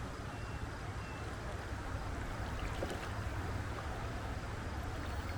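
Shallow mountain stream flowing, a steady rushing of water with a low rumble underneath.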